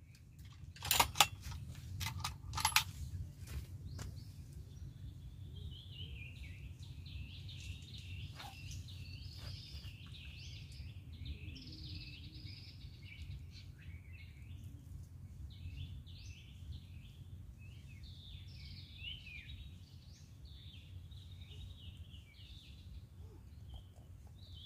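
Small birds chirping and twittering continuously over a steady low rumble. A few sharp clicks or knocks come in the first three seconds.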